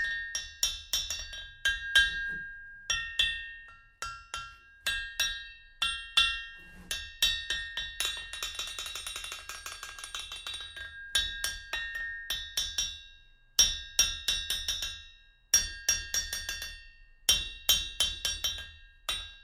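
A hammer struck again and again on the face of a 424 lb North German double-horn anvil, bouncing off it in runs of quick, fading taps, with a rapid flurry in the middle. Each strike leaves a clear metallic ring that is a little muted, showing the hard face and strong rebound.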